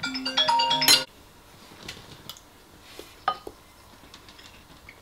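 A short musical chime of a few held notes, lasting about a second, then a few light clinks of a metal spoon against a ceramic bowl, the loudest a little past the middle.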